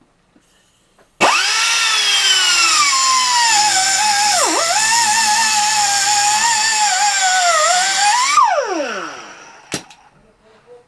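Handheld grinder with a fresh cut-off wheel starting up about a second in and cutting through a piece of metal. Its whine sags in pitch under load, with one sharp dip midway. It is switched off after about seven seconds and winds down with a falling whine, followed by a single knock.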